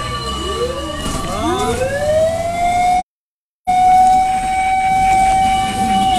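Fire truck sirens wailing. One siren winds up to a steady high tone, holds it, and begins to wind down near the end, while another siren's rising and falling sweep crosses it early on. The sound cuts out completely for about half a second in the middle.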